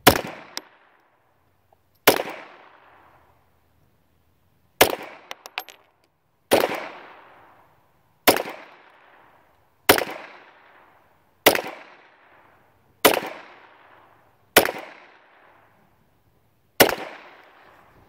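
A .22 LR Ruger Mark II semi-automatic pistol fired ten times in slow aimed fire, one shot every second and a half to two and a half seconds. Each shot is followed by a short echo tail.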